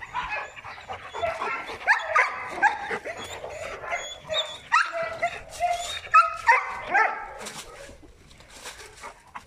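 A dog barking repeatedly in a string of sharp, fairly high calls, loudest about two and six seconds in, dying down after about seven and a half seconds.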